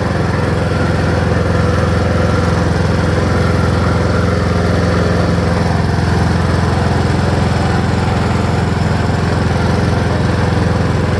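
Riding lawn mower's engine running steadily as the mower is driven along.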